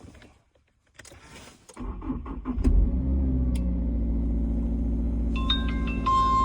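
Subaru Forester's boxer four-cylinder engine cranking for about a second, catching and settling into a steady idle. Near the end a string of short electronic beeps at changing pitches, then one steady high tone.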